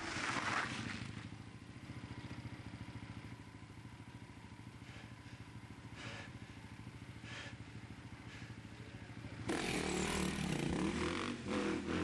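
Motorcycle engine: a quiet, low, fast and even pulsing for most of the time, then about nine and a half seconds in the engine comes in much louder as the bike closes in.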